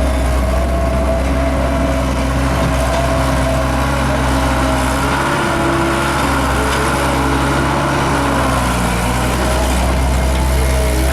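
Gehl 5625 skid steer running steadily, a low diesel engine note with a thin wavering whine above it.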